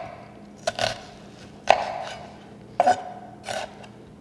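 Kitchen knife chopping onion on a cutting board: four separate, unhurried strokes about a second apart.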